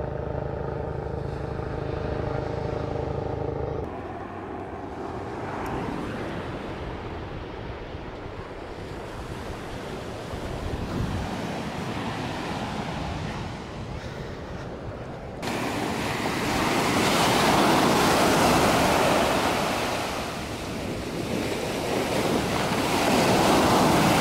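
A banner-towing light plane's propeller engine drones steadily for the first few seconds, then surf washes softly on the shore. After a sudden cut about fifteen seconds in, waves break close by, swelling loud twice.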